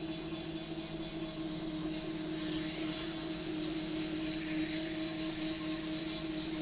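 Electric potter's wheels spinning while clay is thrown, giving a steady motor hum with a fixed whine.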